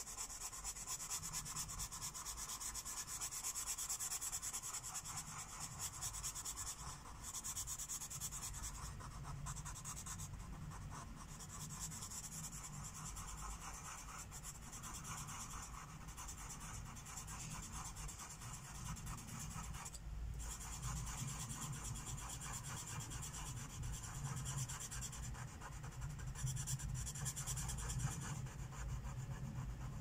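Felt tip of a Sharpie Cosmic Color permanent marker rubbing back and forth on paper as a shape is filled in with colour. The stroking goes on steadily, with a few short breaks.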